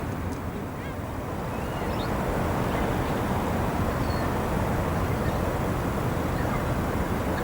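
Steady low rumble of harbour ambience, with a few short, high bird calls scattered through it.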